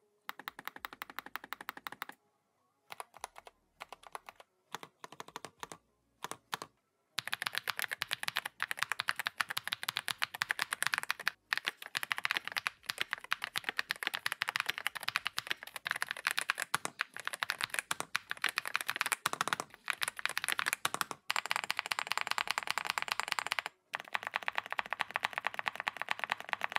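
Typing on a Keychron P1 Pro mechanical keyboard fitted with pre-lubed TTC Golden Pink linear switches. There are short runs of keystrokes with pauses over the first several seconds, then fast continuous typing.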